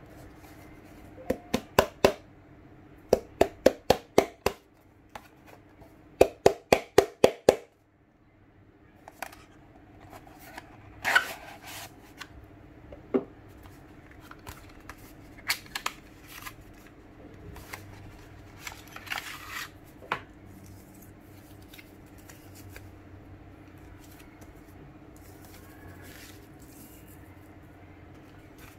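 Cardboard phone packaging being handled on a wooden table: three runs of quick, sharp taps and clicks in the first eight seconds, then softer rustling and scattered taps as the inner tray, sleeve and paper leaflets are lifted out and laid down. A faint steady hum lies underneath.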